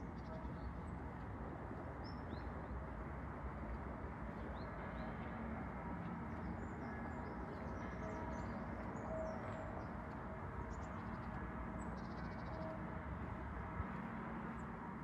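Church bells ringing for the morning, a steady wash of overlapping bell tones, with small birds chirping now and then.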